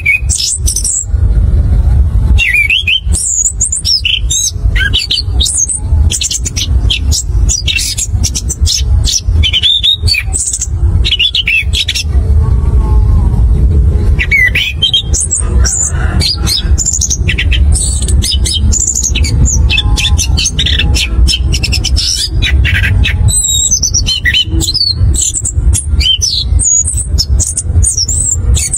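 Chestnut-capped thrush (anis kembang) singing a long, fast, varied song of rapid trills and whistled phrases, with a short lull about twelve seconds in. A steady low rumble runs underneath.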